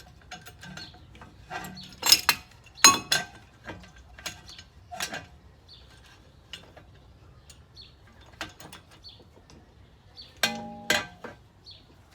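Metal clicks and clinks as a C-clamp is tightened against a front brake caliper to press the caliper piston back in. There are two sharp knocks about two and three seconds in, and a brief metallic ring near the end.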